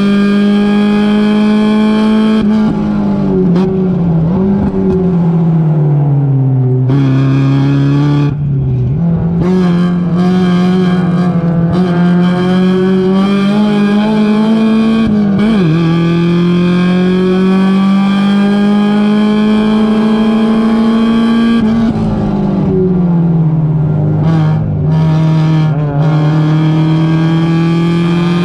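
Mazda MX-5 Miata race car's four-cylinder engine heard from inside the cabin, running hard. Its pitch climbs slowly as the car accelerates, then drops sharply several times with short throttle blips as it brakes and downshifts for corners.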